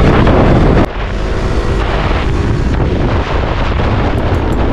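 Wind rushing over a helmet-mounted microphone on a moving motorcycle, with engine and road noise beneath. The sound drops and changes abruptly a little under a second in, then continues steadily.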